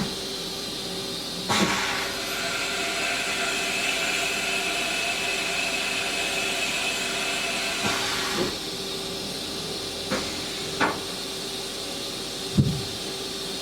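Haas EC-1600-5X horizontal machining center making an automatic tool change. A steady hum runs throughout, a hiss lasts about seven seconds, and there are several clunks of the tool-change mechanism, the last one near the end being the loudest.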